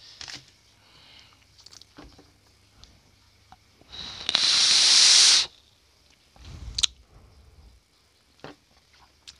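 A drag on a Goon 22 dripping atomizer (RDA): a steady hiss of air pulled through the airflow over the firing coil for about a second and a half, cutting off abruptly. It is followed by a short, breathy exhale of the vapour.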